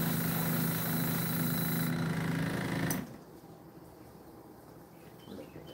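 Airbrush compressor running with a steady hum, with the hiss of air through the airbrush, which stops about two seconds in; the compressor then shuts off abruptly about three seconds in, after a click.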